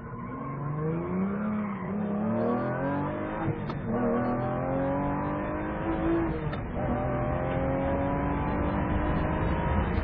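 Lamborghini Gallardo V10 engine accelerating hard through the gears. Its pitch climbs, drops back at an upshift about three and a half seconds in and again between six and seven seconds, then climbs again.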